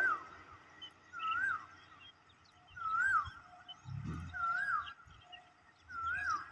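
A bird calling: a single whistled note that rises and falls, repeated about every second and a half, with fainter short notes from another bird between.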